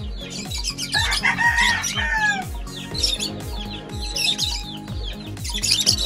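Pet lovebirds and cockatiels chirping busily, with one longer call about a second in that drops in pitch at its end, over background music with a steady low beat.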